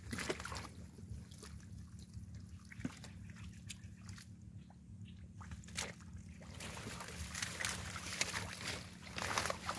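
Hands groping and sloshing in shallow mud and water, making wet squelches, trickles and small splashes, over a steady low hum. Plant stems rustle and are pulled about in the last few seconds, louder than the rest.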